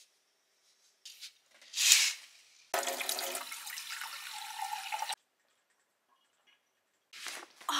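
Water running for about two and a half seconds, starting and stopping abruptly, after two short hissing noises.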